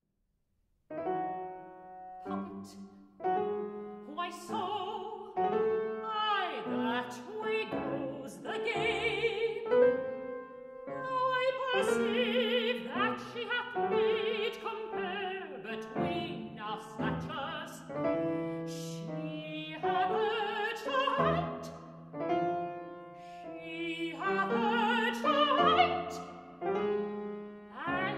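A mezzo-soprano sings an operatic aria in full voice, accompanied by grand piano. The music begins about a second in, after a short silence.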